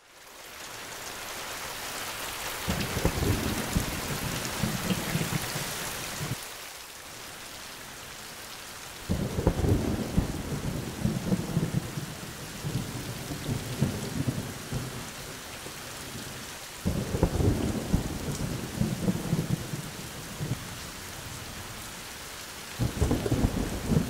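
Steady rain with rolling thunder that rumbles up several times, each roll lasting a few seconds.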